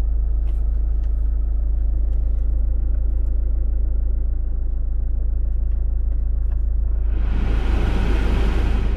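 Engine of a GM Daewoo Windstorm (Chevrolet Captiva) running steadily at idle with a deep rumble. About seven seconds in, a louder rushing noise swells for a second or two and fades.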